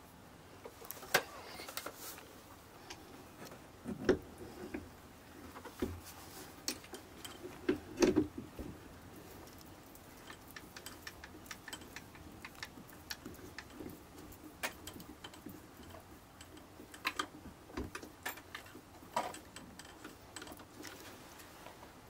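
European badger foraging with its snout along a log, making irregular small clicks and rustles, with two louder bursts about four and eight seconds in.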